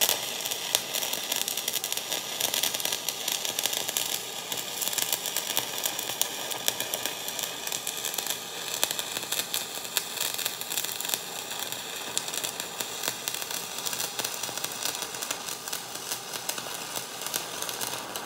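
Electric welding arc crackling steadily without a break, then cutting off abruptly at the very end.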